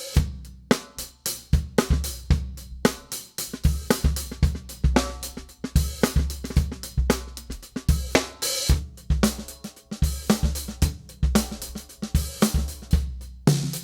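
Drum kit played in a busy groove, a Gretsch Rosewood full range snare cracking among bass drum kicks, hi-hat and cymbals.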